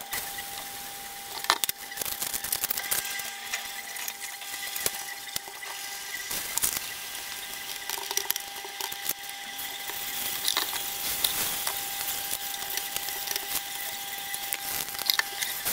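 Thin crepes frying in two pans, a steady sizzle with scattered clicks and taps of utensils against the pans, over a steady thin whine.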